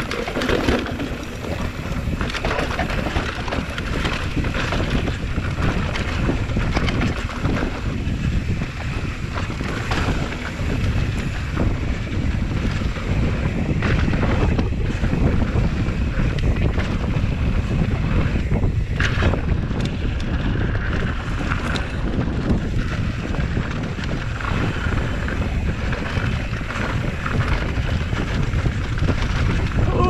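Wind buffeting the microphone over the rumble and rattle of a Canfield Brothers EPO hardtail mountain bike riding a rough dirt trail, with scattered sharp knocks as it hits bumps.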